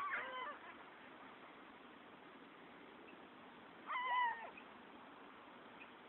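Gulls calling: a few short, high, wavering calls right at the start and another brief burst of calls about four seconds in, with low steady background noise between.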